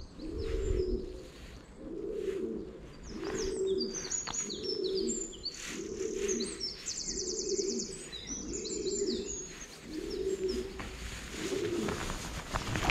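A pigeon cooing over and over, a steady run of low coos about one a second, with small songbirds chirping and trilling above it.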